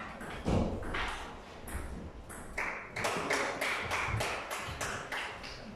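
A dull knock, then a quick run of light, sharp taps, about four a second, that fade away near the end.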